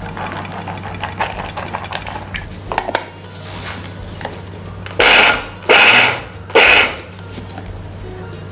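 Boiled bengal gram spooned and tipped into a small steel mixer-grinder jar with light clinks and scrapes, then the mixer grinder's motor run in three short pulses about half a second each, to grind the gram coarsely.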